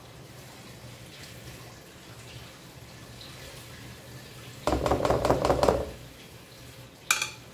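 Thick cake batter pouring and dripping from a bowl into a round aluminium cake pan, a faint wet sound over a low hum. About five seconds in comes a loud burst of handling noise lasting about a second, and near the end a short ringing clink.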